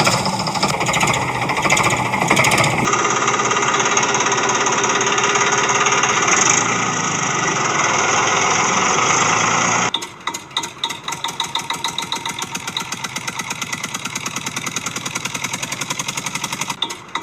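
Dubbed-in heavy machinery engine sound effects in three abruptly cut segments: a rattling engine noise, then from about three seconds in a steady dense roar, then from about ten seconds in a rapid, even chugging like an engine idling.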